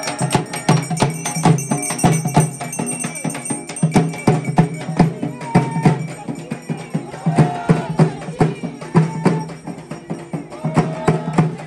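Music with fast, busy percussion over a steady bass line.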